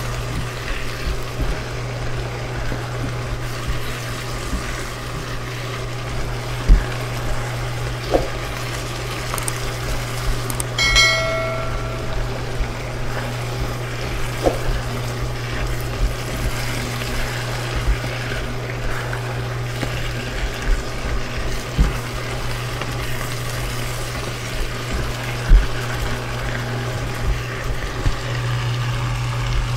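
Vegetables and tofu sizzling as they are stir-fried in a wok, with a steady low hum and occasional light knocks of a silicone spatula against the pan. A short chime rings once about eleven seconds in.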